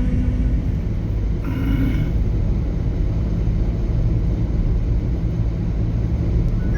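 Steady low rumble of a motor vehicle on the move, with a brief tonal sound about one and a half seconds in.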